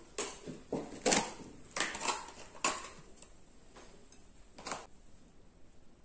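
Knocks and clatters of tableware handled on a table: a butter tub's lid set down and a table knife taken up. There is a quick run of them over the first three seconds, then one more a second and a half later.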